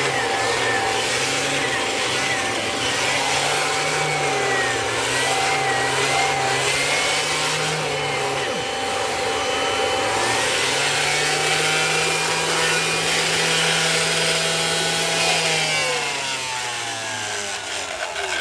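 Kirby Avalir upright vacuum running in compact mode with a turbine zipper-brush tool, its motor pitch wavering up and down. About two and a half seconds before the end it is switched off and the motor winds down with a falling pitch.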